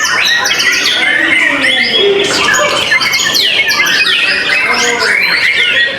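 White-rumped shama (murai batu) singing a rapid, varied song of whistled notes and quick falling sweeps, one phrase after another with no pause.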